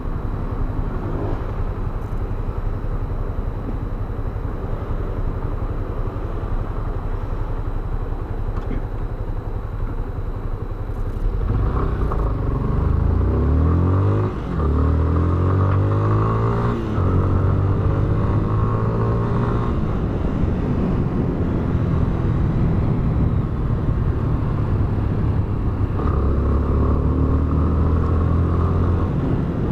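Yamaha Fazer 250 BlueFlex single-cylinder motorcycle engine running steadily, then about eleven seconds in accelerating hard with its pitch climbing, broken by two quick gear changes, before settling into steady cruising.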